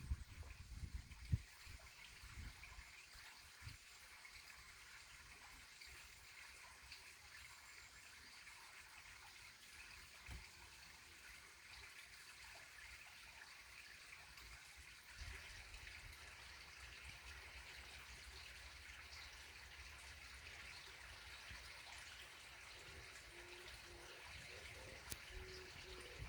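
Faint, steady trickle of running stream water, with a few low knocks in the first few seconds.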